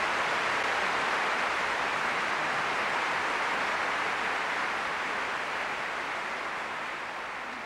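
Large arena audience applauding, a dense, even clapping that slowly fades in the second half.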